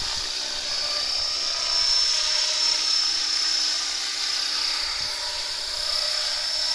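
Align T-Rex 500 flybarless electric RC helicopter hovering low: a steady high-pitched whine from its motor and drivetrain over the noise of the spinning rotor blades.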